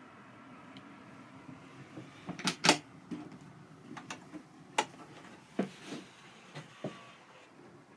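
Clicks and knocks of motorhome cupboard doors and their push-button catches being worked: a loud close pair about two and a half seconds in, then several lighter clicks and knocks.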